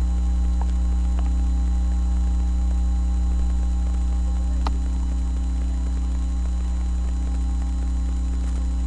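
Steady low electrical mains hum picked up by a webcam microphone, with a few faint clicks, the clearest about four and a half seconds in.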